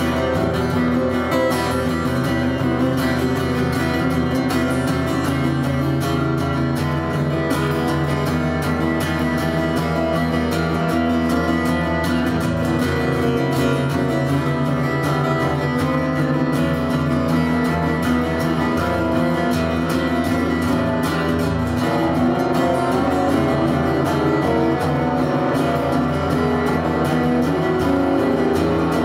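Cutaway acoustic guitar played live, chords ringing on steadily.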